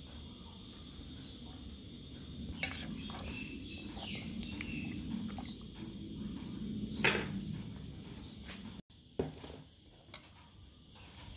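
A metal pot of soup simmering, with a low steady bubbling and several sharp knocks of chopsticks against the pot, the loudest about seven seconds in. After a sudden cut near the end, a few lighter knocks come from a stone mortar and pestle.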